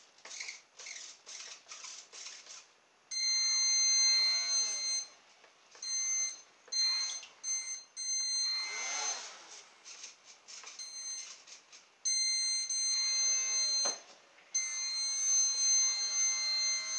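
Small coreless quadcopter motor of a Hubsan H107 type spinning a two-blade propeller on a radio-controlled model boat: a high-pitched whine that switches on and off several times about three seconds in and then runs steadily near the end.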